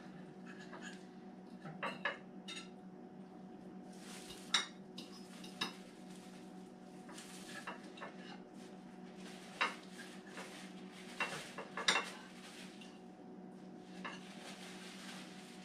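Metal utensils clinking and scraping against dinner plates as braised beef short ribs are served up, with a handful of sharper clinks over a steady low hum.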